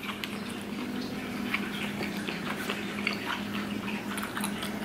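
Scattered soft wet clicks of eating cooked octopus tentacle, over a steady low hum.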